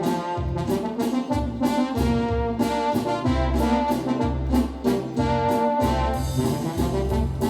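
Yamaha DX7 FM synthesizer playing a brass patch: sustained brass-like chords over a deep, stepping bass line, with sharp percussive hits throughout.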